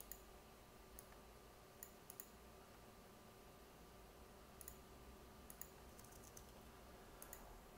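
Faint, scattered clicks of a computer keyboard and mouse, some in quick pairs, as text is copied and pasted, over a faint steady electrical hum.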